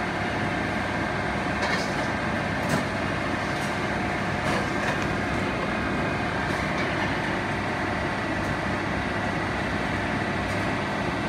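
Steady drone of commercial kitchen machinery and fans, with a couple of faint steady tones in it and a few light clicks.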